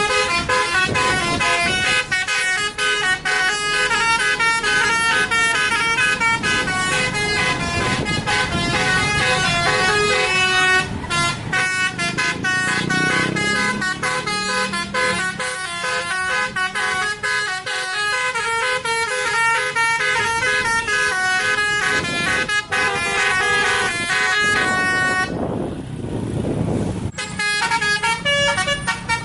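Bus basuri telolet horn playing a fast melody of short stepped tones. It breaks off for a couple of seconds near the end, then starts playing again.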